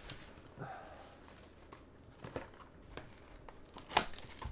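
Trading card packs and cards being handled: soft crinkling and rustling of wrappers and cards, with a sharp click about four seconds in.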